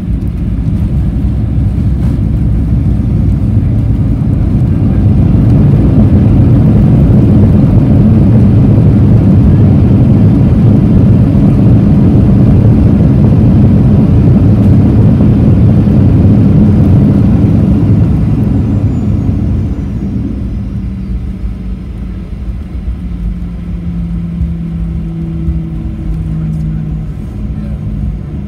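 Boeing 737-800's CFM56-7B jet engines in reverse thrust on the landing rollout, heard inside the cabin: a loud low rumble that builds over the first few seconds, holds, then dies down about 18 to 20 seconds in as the engines come back to idle. This leaves a quieter cabin rumble with a faint low hum near the end.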